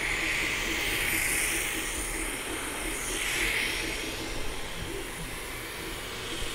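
Cooling fan of a Sovol SV01 Pro 3D printer running at full power during a print: a loud steady rushing hiss that swells about a second in and again around three and a half seconds in as the microphone moves near the print head.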